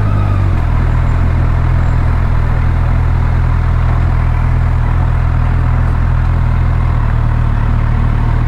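Motorcycle engine running at a steady, unchanging speed, a low even hum.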